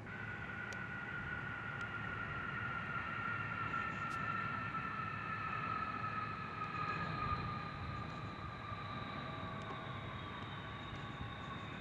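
Jet engines of NASA's four-engine KC-135 rolling along the runway: a whine of several high tones that slowly fall in pitch, over a low rumble.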